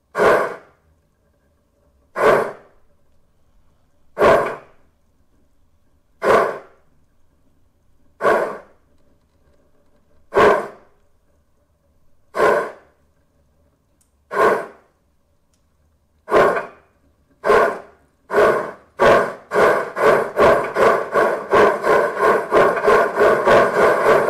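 The sound electronics of a 1:32 Gauge 1 model of the DR class 18.2 express steam locomotive play its steam exhaust chuffs, with no simmering sound between them. Single chuffs come about every two seconds, then from about sixteen seconds in they quicken into a fast, steady beat as the locomotive gathers speed.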